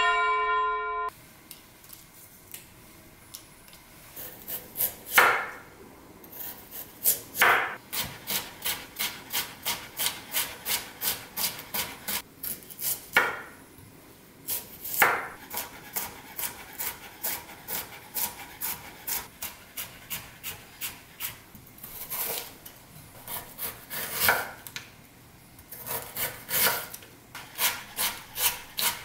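A short chime rings out in the first second. Then a chef's knife cuts peeled chestnuts and then Korean radish into thin strips on a wooden cutting board, striking the board in a quick, steady rhythm of about two to three chops a second, with a few louder knocks in between.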